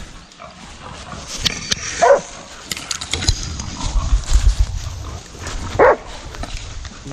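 Laika hunting dogs barking at a wild boar, with the boar grunting and squealing. Two loud, short cries come about two seconds and six seconds in, over rustling and low thumping.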